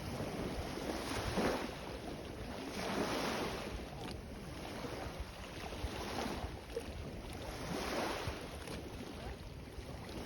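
Sea waves washing in, in several surges a second or two long, with wind buffeting the microphone.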